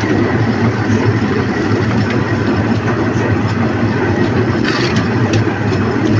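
Concrete mixer's engine running steadily at a constant speed, with a few light clicks about five seconds in.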